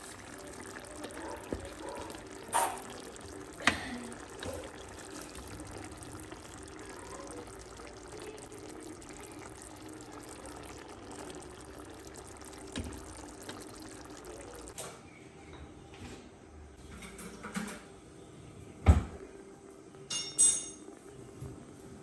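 Chicken curry simmering and bubbling in a stainless steel pan, a steady liquid hiss that cuts off about fifteen seconds in. A few sharp knocks and clinks stand out, the loudest near the end.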